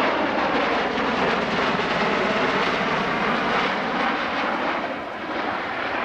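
Bell Boeing MV-22B Osprey tiltrotor making a high-speed pass in airplane mode. Its two large three-bladed proprotors and engines make a loud, steady, throbbing roar that eases slightly near the end.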